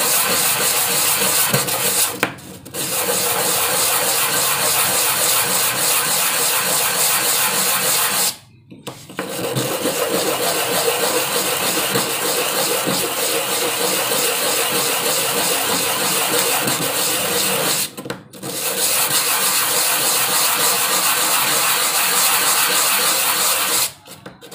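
Hand sanding of an angsana (sono kembang) wood block with a small piece of cloth-backed sandpaper: continuous scratchy rubbing during finish sanding. It stops briefly about two and a half, eight and a half and eighteen seconds in, and again just before the end.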